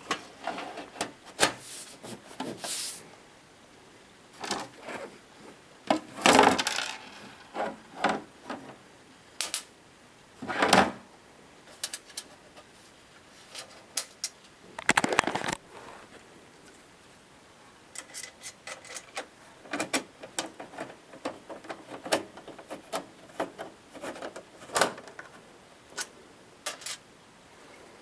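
Tools and small hardware being handled: irregular clicks, taps and clattering knocks, with quicker light clicking in the second half.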